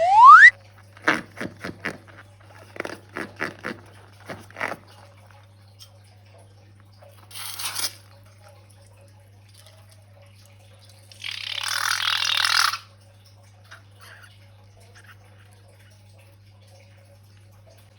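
A short squeak that rises in pitch, then a run of light clicks and taps as balloons and slime are handled. Later come two hissing, pouring-like noises, the second lasting about a second and a half.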